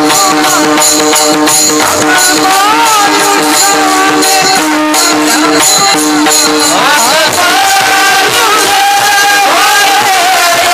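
Devotional abhang sung in varkari kirtan style: voices sing with gliding, held notes, while many small brass hand cymbals (taal) clash in a fast, steady beat.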